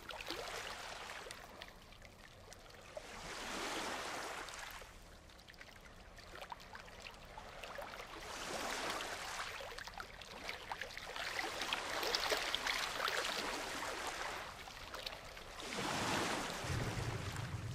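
Ocean surf: waves breaking and washing on a beach, swelling and ebbing about every four seconds. A low rumble of thunder comes in near the end.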